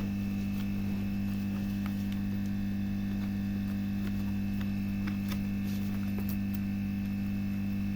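Steady electrical mains hum, with a few faint ticks about five to six seconds in.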